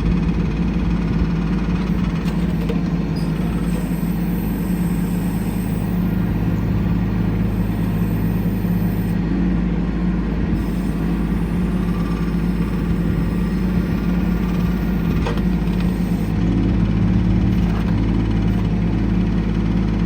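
Kubota LX2610 compact tractor's three-cylinder diesel engine running steadily, its note shifting slightly a couple of times.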